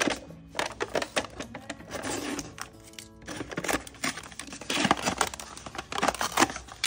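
A foil lid seal being peeled off a paper food cup, and the foil packet inside crinkling as it is handled: a run of irregular crackling rustles, loudest about five seconds in. A brief pitched tone sounds about three seconds in.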